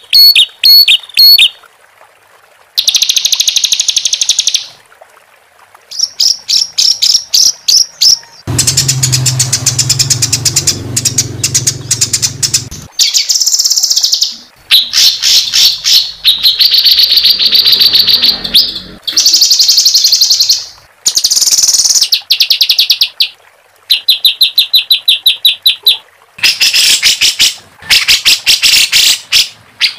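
Recorded songbird song used as masteran training audio. It comes in loud bursts of harsh, rapid-fire repeated notes and rolling trills, each a second or two long with short gaps between. One longer, coarser passage with a low rough undertone comes about a third of the way in.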